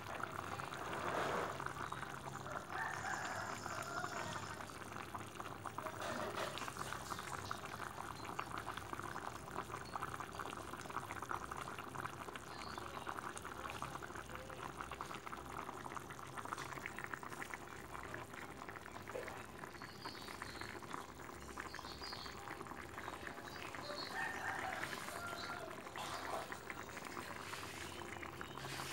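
Rendang simmering in a blackened pan on the stove, its thick coconut-milk sauce bubbling with a steady fine crackle of small pops.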